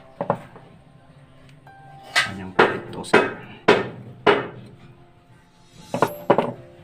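Sharp knocks over quiet background music: two at the start, five evenly spaced about half a second apart in the middle, and two close together near the end, from airgun parts being handled and tapped during repair.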